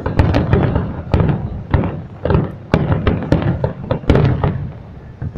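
Aerial fireworks shells bursting in quick, irregular succession: a dense series of sharp bangs, several a second, over a continuous low rumble.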